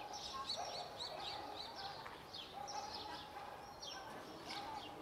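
Small birds chirping: a quick run of short, high notes that each slide downward, repeating several times a second.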